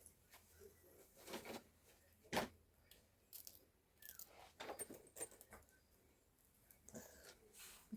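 Faint, scattered clicks and light rattles of small objects being handled and set down, the sharpest click about two and a half seconds in.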